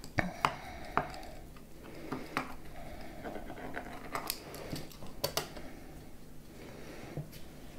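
Pizza cutter wheel rolling through a tomato cake and scraping on the plate beneath, with a series of sharp clicks and knocks of metal on the plate, loudest in the first second.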